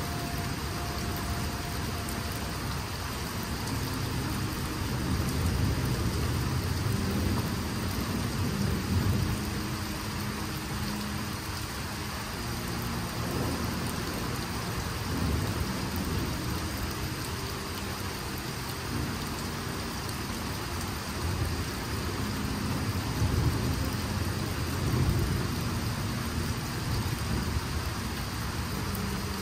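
Steady rain falling on trees and wet ground, with low thunder rumbling in several long swells, the strongest near the middle and about three quarters of the way in.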